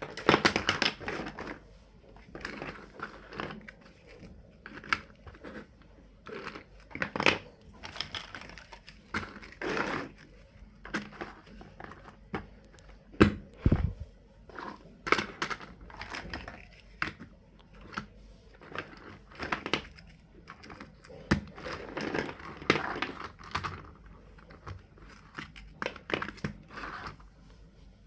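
Small plastic building blocks being handled and pressed together: irregular clicks, knocks and rustles, with a louder knock about halfway through.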